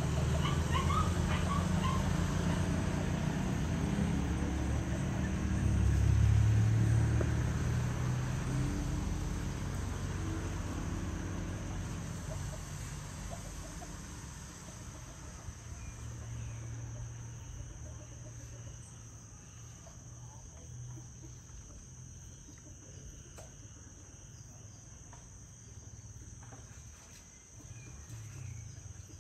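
Steady, high-pitched drone of an insect chorus, with a low rumble in the first half that swells about six seconds in and then fades away.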